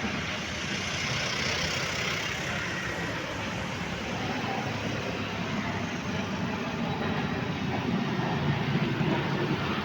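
Vibratory roller compactor running steadily while compacting soil, a dense engine-and-machine rumble.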